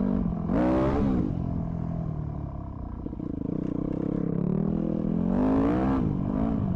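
Yamaha dirt bike engine running under way, revving up twice, about half a second in and again near the end, then easing back off.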